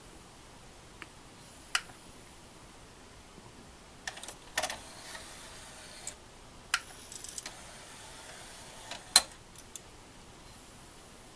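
Scattered sharp plastic-and-metal clicks and clacks of a disc player being handled, about eight of them at irregular intervals, the loudest one about nine seconds in.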